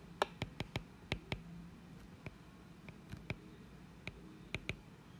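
Stylus tapping on a tablet's glass screen while handwriting: a string of sharp, uneven clicks, about three a second.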